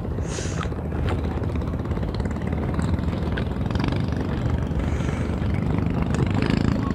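Small boat motor running steadily at an even speed, with a low hum.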